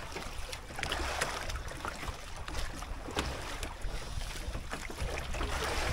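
Steady wind and water noise on a small boat at sea, with scattered light clicks, as a spinning reel is cranked in against a hooked fish on a hard-bent jigging rod.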